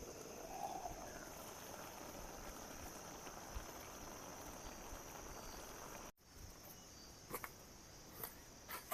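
Faint, steady chorus of crickets and other night insects, a continuous high-pitched trill. It breaks off abruptly at an edit cut about six seconds in, then resumes with a few faint knocks and clicks near the end.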